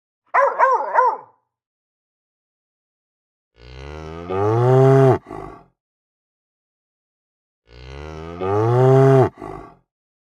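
A cow mooing twice, two long, low calls each about two seconds long that swell louder partway through and stop abruptly. Just before them, a dog gives three quick yelps.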